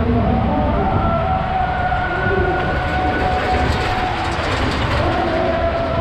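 A fairground Ferris wheel running with riders aboard: a steady, loud rumble with several long, held tones over it, typical of the wheel's metal structure in motion.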